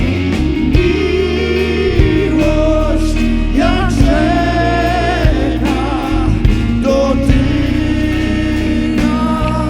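Live worship band music: a voice sings long, wavering notes over held bass notes and a steady drum beat.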